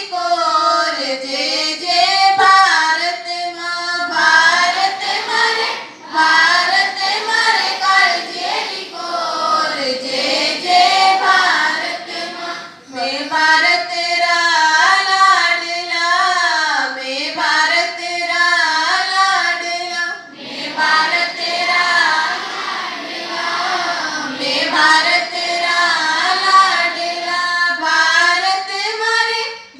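A group of schoolchildren singing a prayer together in unison, line by line, with short breaks between phrases.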